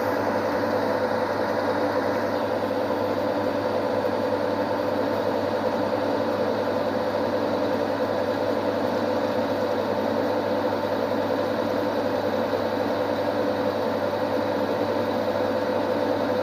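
Metal lathe running steadily, turning a piece of scrap steel bar down to size, a constant even mechanical hum.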